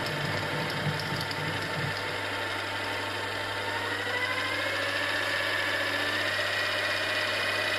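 Milling machine's spindle motor running steadily with a whine. From about halfway through, the whine rises slowly in pitch as the speed climbs.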